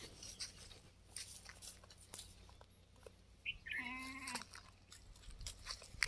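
A Kota goat bleats once, a short call a little over halfway through, over faint clicking and rustling on dry straw.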